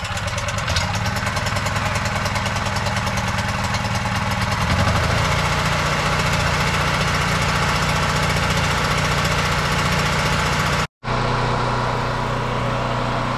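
Brute portable gas generator's small engine running just after being pull-started on choke. About five seconds in, its note shifts as the choke is adjusted. After a brief gap in the sound near eleven seconds it runs on steadily.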